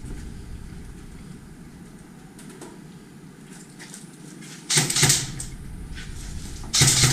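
Airsoft gun firing two double taps, about two seconds apart, each pair of shots sharp and loud.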